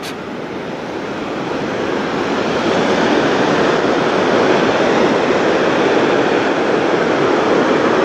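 The Vøringsfossen waterfall rushing in the gorge below: a steady, even roar of falling water that swells a little over the first few seconds and then holds.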